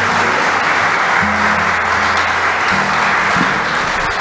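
Audience applauding steadily, with music playing underneath in held low notes.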